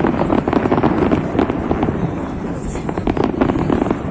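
Fireworks display going off in a dense, continuous run of crackling bangs and pops, many to the second, with no break.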